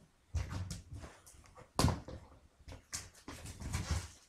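A cardboard collector's box handled and set down on a wooden table: a few short knocks and rustles with quiet gaps between them.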